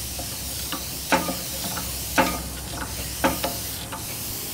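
Hand-operated boiler feed pump with a 1-inch stainless steel ram being worked by its lever, clacking about once a second with each stroke, over a steady hiss of steam from the boiler.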